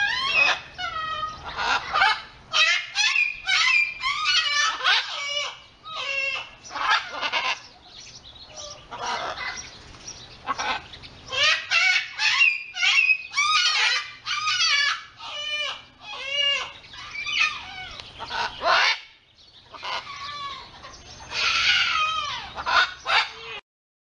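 Scarlet macaw squawking over and over, short harsh calls in quick runs with two brief lulls, stopping abruptly near the end.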